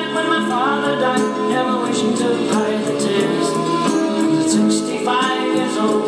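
Oldies rock'n'roll song with a lead singer and backing vocals, played back on a GoldStar TSV-3900 boombox from a cassette of rock'n'roll hits.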